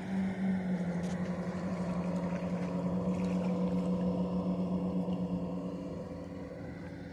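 Fog horn sounding one long, steady blast whose pitch steps down slightly about a second in, then dies away near the end.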